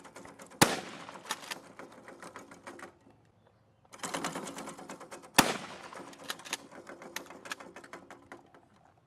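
Rapid gunfire in two bursts of a few seconds each, separated by a short pause about three seconds in, each burst containing one much louder, sharper shot.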